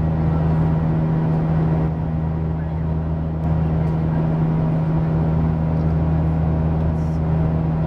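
Steady cabin noise of a Boeing 737-800 in flight: an even drone of airflow and CFM56 engines with a strong low hum.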